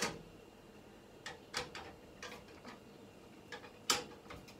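Screwdriver loosening the screws of a PC case fan: scattered sharp clicks and ticks of metal and plastic, the loudest near the end.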